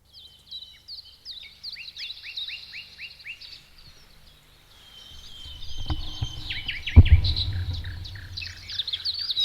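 Songbirds chirping and twittering, with a run of about seven quick downward-sweeping chirps a couple of seconds in. A low rumble comes in past halfway, with two thumps about six and seven seconds in, the second the loudest sound.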